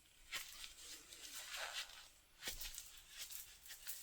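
Faint small clicks and a brief soft rasp of resin-craft containers and tools being handled while white pigment paste goes into the resin.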